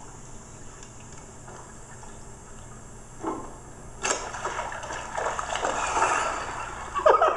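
Carp struck by a bowfishing arrow, thrashing and splashing hard at the water's surface. The splashing starts suddenly about four seconds in, after a brief thump a little earlier.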